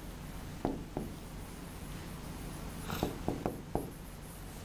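Pen writing on a board in short quick strokes and taps, two about a second in and a quick cluster of four or five around three seconds in, over a steady low room hum.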